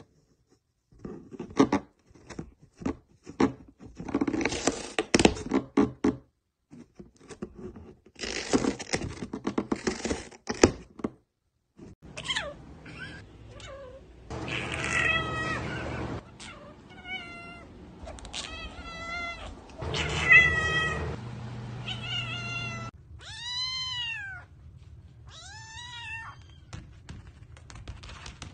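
Scratching and rustling clicks of a cat moving about in a cardboard box for roughly the first eleven seconds, then a cat meowing repeatedly. Near the end a kitten gives two high mews, each rising then falling in pitch.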